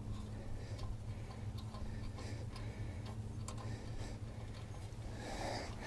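Faint scattered light clicks from a hand working at the snowblower's carburetor drain button, over a steady low hum.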